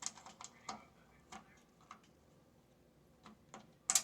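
Scattered light clicks and taps of metal parts being handled as a tool box handle is fitted, with a sharper clack near the end.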